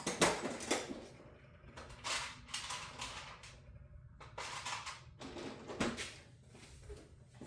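Handling noise on a workbench: a series of irregular clicks and clatters of small hard objects being picked up and set down.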